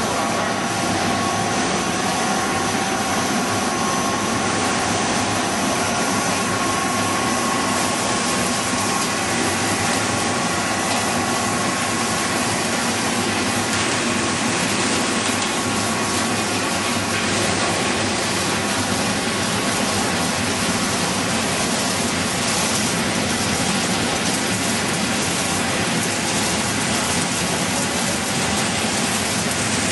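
Corn flake extrusion and flaking line machinery running: a steady, loud mechanical din of motors and moving parts, with faint steady whining tones that fade after the first several seconds.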